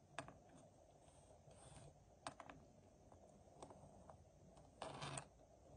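Faint, scattered clicks and taps of LEGO Technic plastic parts as a small brick-built motorcycle model is handled on a wooden floor, with a short louder scraping rustle about five seconds in.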